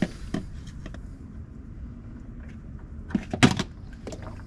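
Scattered clicks and knocks of hands working a spin-on oil filter loose, with a louder burst of clatter about three and a half seconds in as it comes free.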